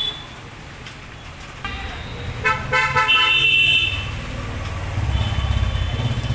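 Street traffic: two vehicle horn honks, one after the other, around the middle, over the low sound of a vehicle engine running, which is loudest near the end.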